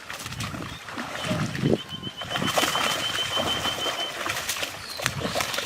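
Water splashing and sloshing in a pond during net fishing, in irregular bursts. A rapid high trill runs through the middle for about three seconds.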